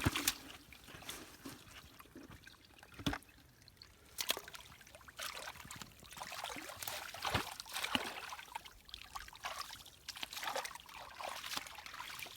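Shallow muddy water splashing and sloshing irregularly as hands grope through it for fish, with a couple of sharp knocks.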